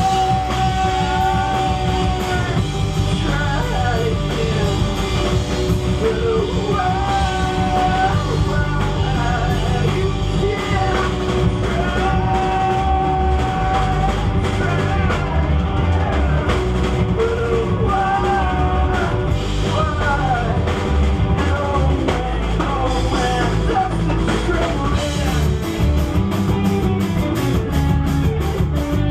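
A live rock band playing a song, with a singer over a drum kit and a full low end; steady cymbal hits come in near the end.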